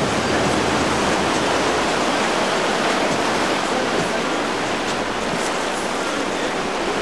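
Steady rushing of water from breaking waves and a boat's churning wake, with no clear engine tone.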